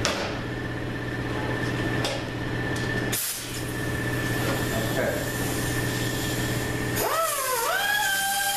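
Small grinding wheel cutting down protruding bolt ends on a steel automatic-transmission clutch drum. About seven seconds in, a high whine starts, glides up and settles as the wheel bites the metal, over a steady hum.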